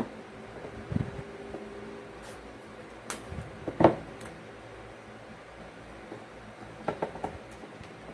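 Handling noise from fan wiring being twisted together by hand and moved against the plastic switch-regulator box on a tabletop: a few scattered small clicks and knocks, the sharpest nearly four seconds in, over a steady low hum.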